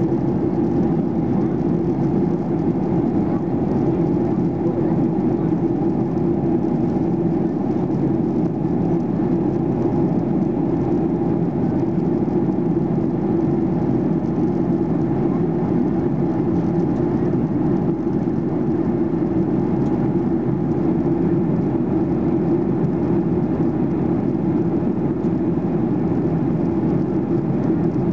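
Steady cabin noise inside a Boeing 737-800 in flight: the drone of its CFM56-7B jet engines and the rush of air, even and unchanging.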